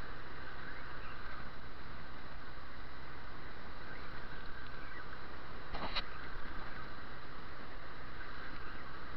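Steady rush of surf breaking on rocks, mixed with wind on the microphone, with a sharp knock about six seconds in.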